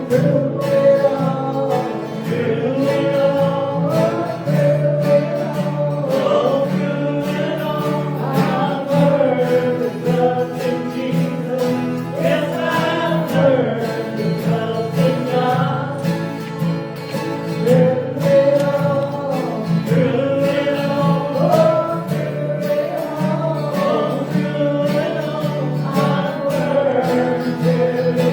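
Gospel song performed live, with guitar accompaniment under a sung melody.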